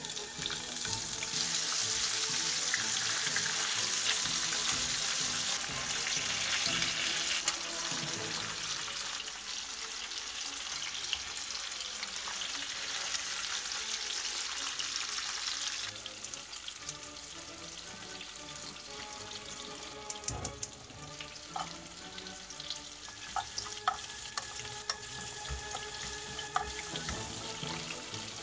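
Whole dried yellow croakers sizzling and spattering in hot oil in a frying pan, loudest for about the first sixteen seconds. After that the sizzle drops to a quieter level, with scattered sharp clicks of utensils against the pan.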